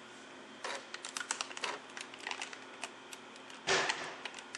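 Keys and buttons of a Toshiba Satellite A215 laptop being pressed: an irregular run of quick plastic clicks, then one louder knock near the end.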